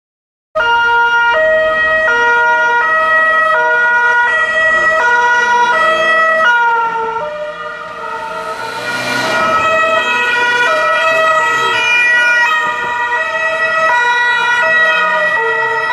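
Two-tone police sirens, more than one sounding at once out of step, each stepping between a high and a low note about every three-quarters of a second. They cut in suddenly, and a brief rushing noise rises and falls about nine seconds in.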